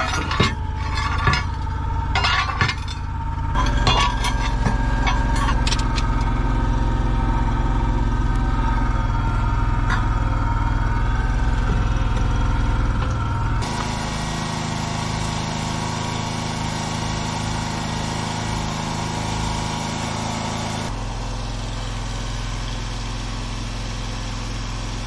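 Metal clanking and clinking as steel parts are set in place, then an engine running steadily, its sound changing abruptly twice.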